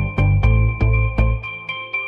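Background music with a steady beat over held bass notes; the bass drops out briefly near the end.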